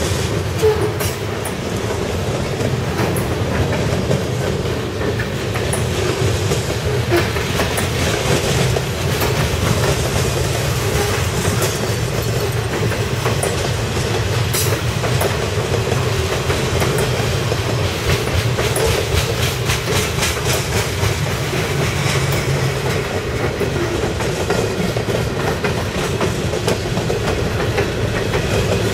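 Freight train cars (boxcars and hoppers) rolling past at speed: a steady rumble and clatter of steel wheels on the rails, with rapid clicks as the wheels pass over the track.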